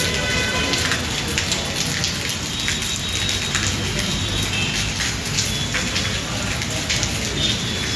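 Steady rain falling on wet concrete paving: a constant hiss dotted with many sharp individual drop hits.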